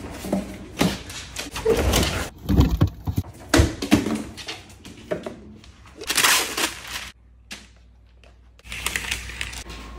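Kitchen clatter as a Belgian Malinois rummages in a lower cabinet and then an open refrigerator: irregular knocks, clunks and rattles of doors and containers, followed by a short rustling burst and a quieter spell near the end.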